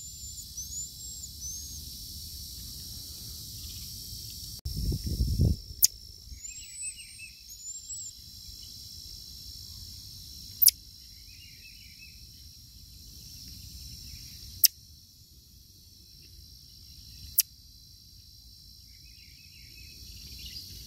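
Steady high insect drone with a few short, high, curved chirps, two groups of them. Four sharp clicks stand out, the loudest sounds, spaced three to five seconds apart, with a low rumble of handling noise about five seconds in.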